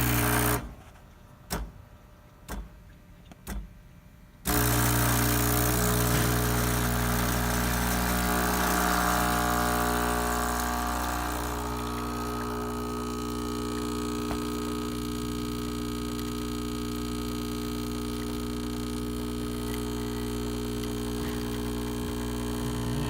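Breville BES820XL espresso machine's vibratory pump humming steadily as it pulls a shot, after three short pulses about a second apart near the start. With the stuck solenoid valve replaced, there is no clicking or grinding.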